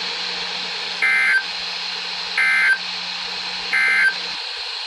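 Three short, identical EAS/SAME digital data bursts, warbling between two tones, about a second and a half apart: the end-of-message (EOM) code that closes a NOAA Weather Radio warning. Under them runs the receiver's steady hiss and a low hum that cuts off shortly before the end.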